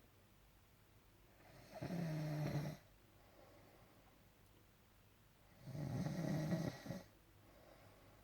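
A sleeping man snoring: two loud snores about four seconds apart, each lasting about a second, with quiet breathing between them.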